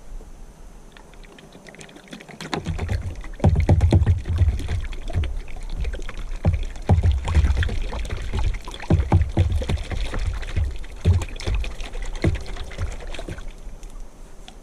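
Bear bait being dumped and handled at a bait pile: a rushing pour over a run of knocks and low thumps, starting a couple of seconds in and easing off near the end.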